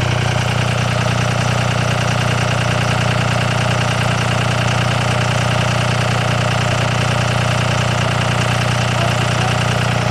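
Second-gen 5.9 Cummins 24-valve diesel running at a steady idle, heard close to its exhaust tip. It is the engine's cold-weather three-cylinder high idle, which the ECM uses to warm the engine faster.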